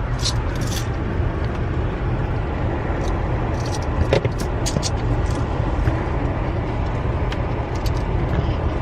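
Steady road and engine rumble inside a moving car's cabin, with a few light clicks and rattles.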